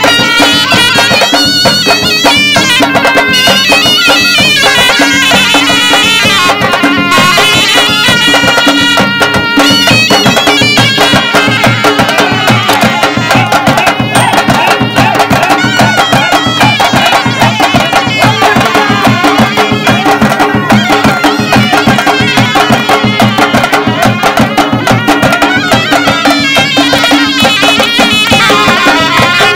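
Live Hunza folk dance music: reed shawms (surnai) play a loud, nasal melody over a steady beat from a double-headed barrel drum.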